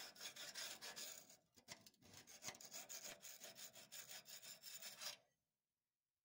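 Near silence: a faint hiss with light scratchy rubbing, which cuts off to dead silence about five seconds in.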